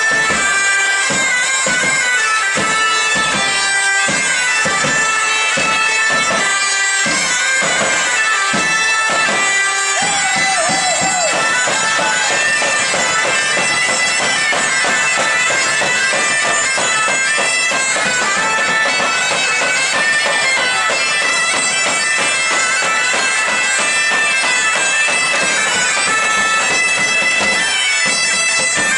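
Live band music from wind instruments playing a tune over a steady held tone, with a regular beat for the first ten seconds and fuller, denser playing after that.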